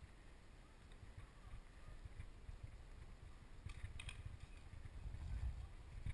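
Low rumble of wind and walking movement on a body-worn action camera's microphone, with a short cluster of sharp clicks about four seconds in.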